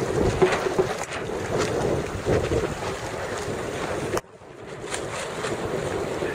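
Strong wind on the microphone over choppy water, a rough gusting rush with water slapping beneath it; the noise drops out sharply about four seconds in and builds back up.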